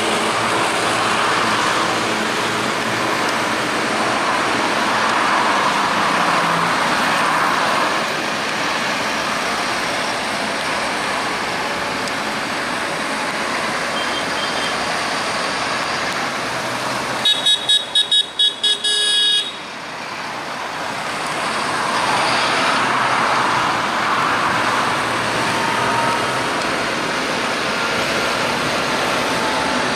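A convoy of large farm tractors drives past one after another, engine and tyre noise swelling and fading as each goes by. About two-thirds of the way through, a vehicle horn gives about six quick toots in a row.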